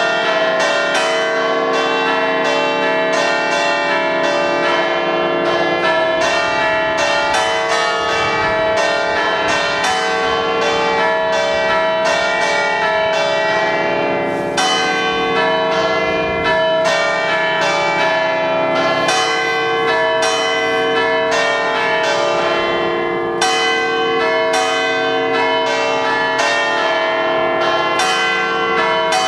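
An eight-bell church concerto in C, cast by Pasquale Mazzola in 1879, played as a tune: the bells hang still and are struck in a quick, steady run of strokes, several a second, whose ringing overlaps.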